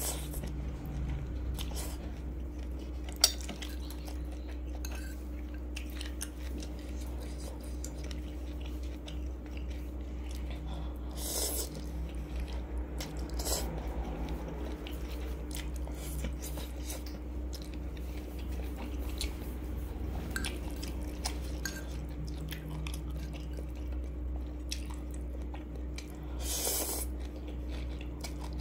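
Close-miked eating of spicy instant noodles with a metal fork: chewing and slurping, with scattered clicks of the fork against the ceramic bowl and one sharp click about three seconds in. A steady low hum runs underneath.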